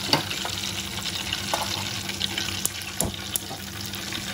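Hot oil sizzling and dripping off battered fried chicken in a wire frying basket just lifted out of the oil, with a few sharp clicks of the metal basket.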